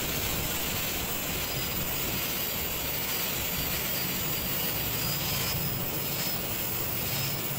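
Electric angle grinder running steadily with a polishing pad pressed against the edge of a granite countertop: a steady motor whine over an even grinding hiss as the stone edge is smoothed and polished.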